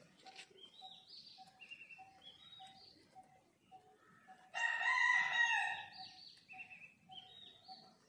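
A rooster crows once, a single call of about a second and a half starting a little past halfway through. Small birds chirp around it, and a faint short note repeats about twice a second throughout.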